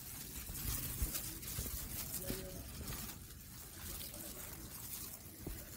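Plastic-gloved hands rustling and crinkling as they stir and toss a dry flour coating mix in a steel bowl.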